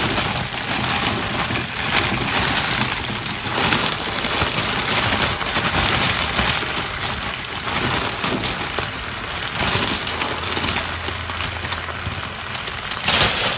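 Fresh spinach leaves tipped from a crinkling plastic bag into a hot steel pot: a dense, continuous crackle of plastic and rustling leaves over sizzling from the pot, with a louder rustle near the end as the leaves are pressed down.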